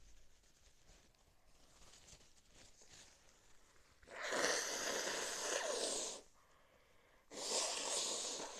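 Two long, noisy blasts of breath from a person with a cold: the first comes about four seconds in and lasts about two seconds, and a shorter one follows near the end.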